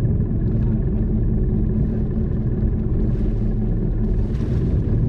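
A wooden fishing boat's inboard engine running steadily with a low rumble.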